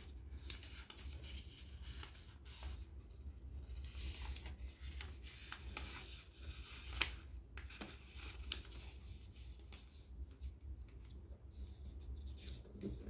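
A sheet of paper being folded and creased by hand, with scattered rustles and crinkles and a sharper crackle about seven seconds in. A low steady hum runs underneath.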